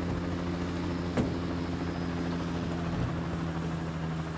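Steady low drone of an engine running at an even pitch, with a single sharp knock about a second in and a dull thump near the end.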